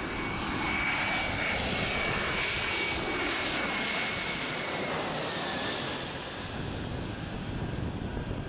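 Airbus A320 jet airliner on low final approach, passing overhead with steady jet engine noise and a high whine. The whine drops in pitch about five to six seconds in as the aircraft goes by, and the sound then eases a little.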